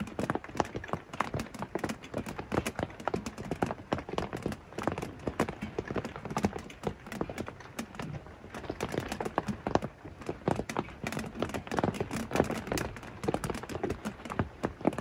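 Rapid, irregular tapping and knocking, several sharp taps a second, with no steady rhythm.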